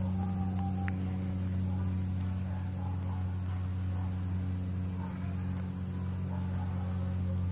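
Bees foraging at flowers, making a steady, low buzzing hum.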